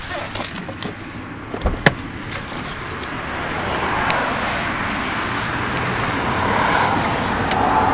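Honda Civic's trunk being popped open: a few small clicks and one sharp latch clack about two seconds in. A steady rushing noise then grows louder from about three seconds in.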